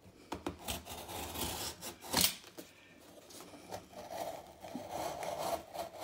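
Small knife blade slitting open a cardboard parcel: scratchy, uneven scraping and tearing of the tape and cardboard, with one louder sharp stroke about two seconds in and a steadier stretch of scraping in the second half.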